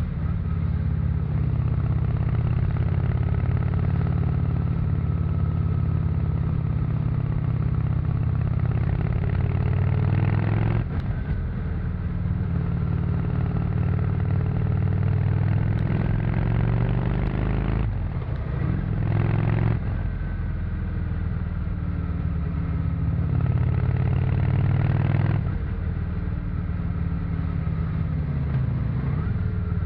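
1997 Honda VT 600 C Shadow's V-twin engine, on its stock exhaust, running under way at cruising speed. The engine note dips and climbs again about a third of the way in, once more past halfway and again near the end.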